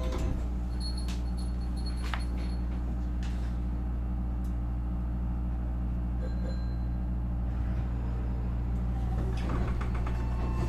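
Nankai 8300 series electric train standing with doors closed before departure: a steady low hum from the car's onboard equipment, a few sharp clicks in the first few seconds, and a short rush of noise about nine and a half seconds in.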